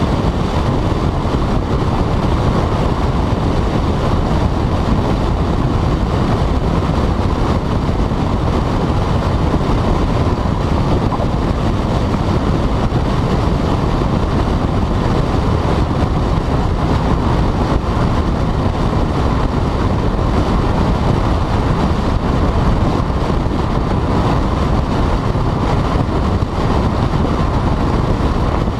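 Volkswagen GTI with a Stage 2 tune and turbo-back exhaust driving at a steady pace, heard as a constant rush of road and wind noise with the engine and exhaust underneath. There are no rev changes.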